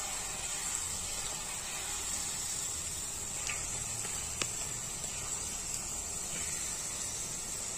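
Jalebi batter sizzling in hot oil as it is piped into the pan: a steady frying hiss, with a faint tick or two about halfway through.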